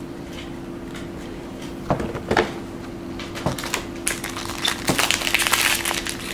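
Foil wrapper of a 2012 Bowman Jumbo baseball card pack crinkling and crackling as it is torn open and handled. A few sharp crackles come about two seconds in, and denser crinkling from about four seconds on.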